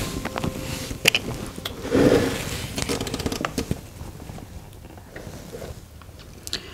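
Handling noises as small cosmetic items are put down and picked up: scattered clicks and taps with some rustling, the loudest knock about two seconds in.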